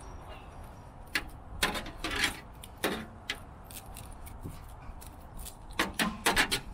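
Copper scrap wire being handled and coiled by hand, the strands clinking and rattling against each other in short bursts, with the loudest cluster near the end.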